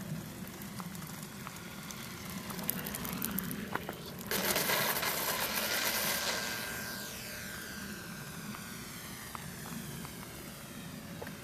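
Electric ParkZone T-28 RC model plane making a low pass: the rush of its propeller and motor comes in suddenly about four seconds in, stays loud for about two seconds, then fades away with a sweeping, phasing tone as the plane passes and climbs off.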